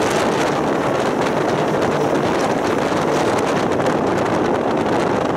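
Steady running noise of a tram in motion, heard from inside the car: an even rumble of wheels on rails and the drive, with wind noise on the microphone.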